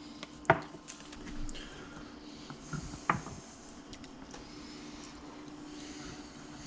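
A steady low hum with a few sharp clicks and taps of kitchen utensils and containers while fish is being coated in breading; the loudest clicks come about half a second in and about three seconds in.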